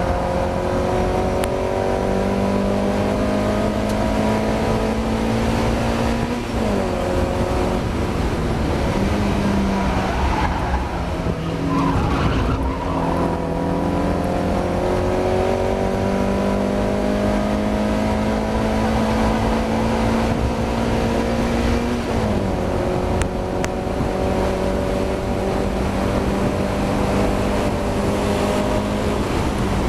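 Mazda MX-5 race car's four-cylinder engine under hard acceleration, heard onboard. The revs climb steadily through long pulls and drop sharply at gear changes about six and twenty-two seconds in, with a broken stretch of lifting and downshifting in between, on a car suffering from a misfire.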